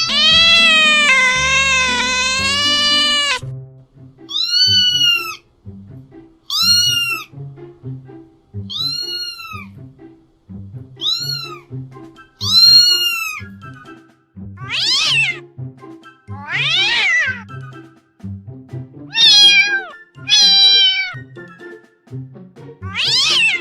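A domestic cat meowing over background music. It opens with one long wavering meow of about three seconds, then gives a run of short arched meows roughly every two seconds. The later calls sweep down in pitch.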